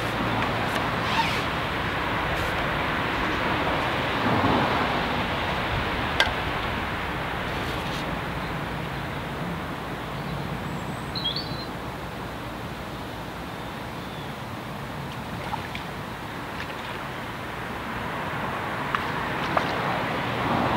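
Steady outdoor background rumble and hiss, with a few small clicks and a short high chirp about eleven seconds in.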